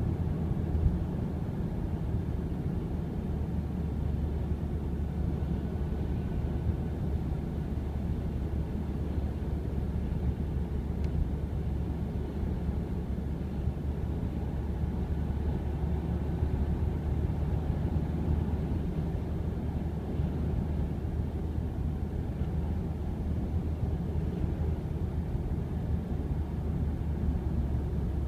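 Inside the cabin of a Ford Mondeo Mk3 while driving: a steady low engine and road rumble with a fine, continuous rattle in it, the rattle that shows up at around 80 km/h.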